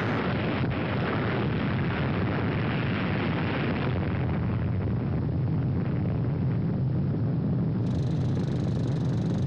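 Steady low rumbling roar of an explosion with a hiss over it, the kind of long rumble that follows a nuclear blast; its hissy upper part fades after about four seconds while the deep rumble goes on.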